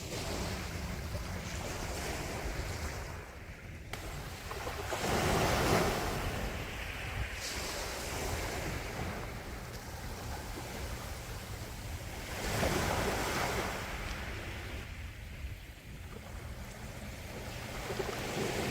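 Calm sea waves washing on the shore, with two swells breaking louder about seven seconds apart over a steady low rumble.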